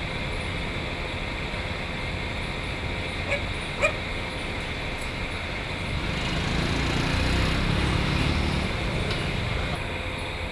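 Steady low traffic rumble that swells for a few seconds past the middle, with two short dog yelps about three and a half seconds in.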